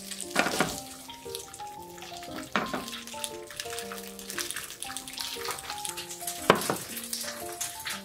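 Pieces of sundae (Korean blood sausage) sizzling as they fry in oil in a pan, with a clatter as they are tipped in near the start and a sharp knock about six and a half seconds in. Gentle background music with a melody of short notes plays over it.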